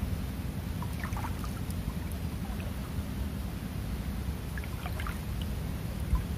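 Small 8 hp boat engine running steadily with a low, even drone as the boat cruises.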